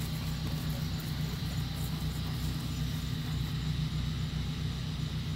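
A motor running steadily with a low, even hum.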